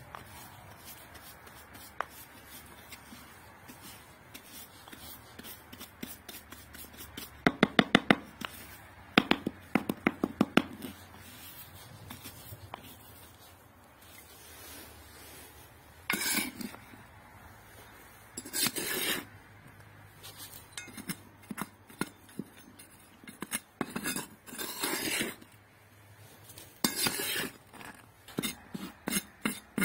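Small metal hand trowel and a hand brush working stony soil: a quick run of sharp clinking clicks about a quarter of the way in, then several separate scraping strokes through the second half.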